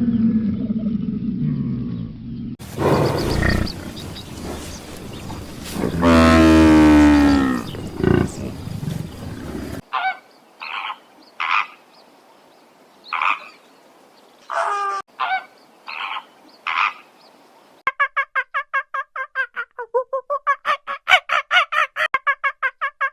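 A sequence of different animal calls: a long, loud pitched call, then a string of short separate honk-like calls, then a fast, even run of calls at about four a second near the end.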